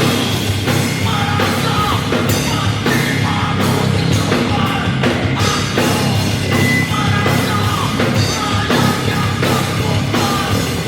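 Rock band playing loud heavy rock live, a drum kit driving it, with sung and shouted vocals.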